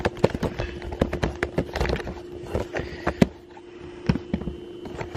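Handling noise of a camera being taken off its tripod: irregular clicks, knocks and rubbing on the microphone, with a faint steady hum underneath.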